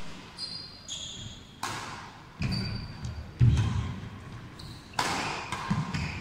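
Badminton rally: several sharp racket hits on the shuttlecock mixed with players' footsteps thudding on the court floor, the heaviest thud a little past halfway, and a few short high squeaks.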